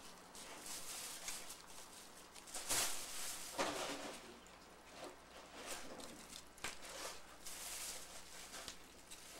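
Scattered light rustles and small knocks of handling, with two louder ones about three and three and a half seconds in.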